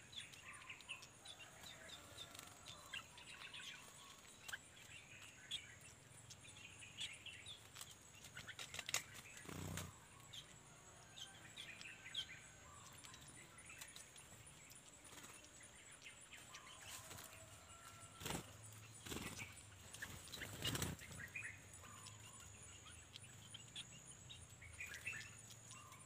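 Faint, scattered chirps and short calls of small songbirds over a steady high-pitched whine, with a few soft knocks about a third of the way in and again past two-thirds.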